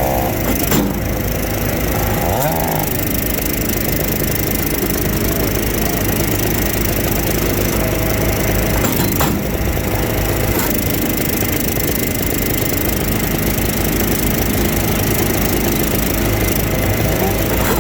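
Engine-driven firewood machinery running steadily while splitting wood, with wood cracking and splintering over a constant engine hum and a few sharper cracks.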